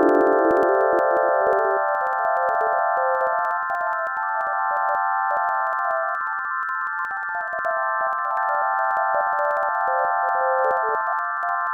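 Computer-generated sonification of the Mandelbrot set: many steady sine tones sounding together as a dense chord. The lowest tones step upward in pitch over the first few seconds, then flicker up and down beneath the held upper tones.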